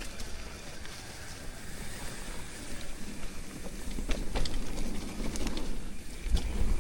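Mountain bike riding a dirt trail: steady tyre rumble and wind on the microphone, with sharp clicks and rattles from the bike about four seconds in and a heavy thump near the end.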